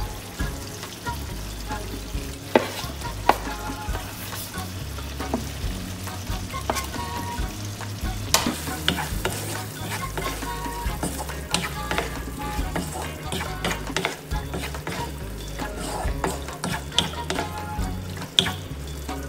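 Mussels sizzling in sauce in a non-stick wok, stirred with a wooden spatula that scrapes and knocks against the pan. A steady sizzle runs under scattered sharp clicks from the spatula.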